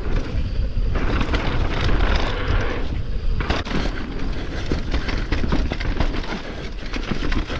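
Mountain bike riding down a dirt trail heard from an on-bike or helmet camera. Wind buffets the microphone in a heavy rumble, tyres hiss over loose dirt, and the bike rattles and knocks over bumps. A stretch of louder tyre hiss comes about a second in and lasts a couple of seconds.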